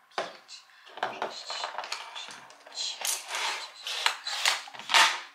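Makeup products (compacts, palettes, tubes) being picked up and set down one after another on a table, clicking and clattering as they are counted.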